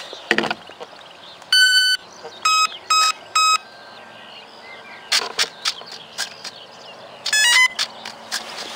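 Start-up beeps from the electric speed controller of a foam RC warbird, sounded through its motor once the flight battery is connected. There is one long tone, then three short beeps, and later a quick run of stepped tones, with handling clicks and knocks in between.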